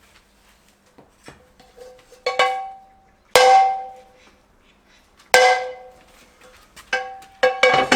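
Metal bowls clanking and ringing: a few loud clanks, each ringing on for about a second, then a quick run of clanks near the end.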